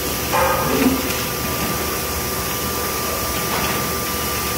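Steady hum of plastic-parts production-line machinery with a thin high tone running through it. About half a second in, hard plastic parts clatter briefly.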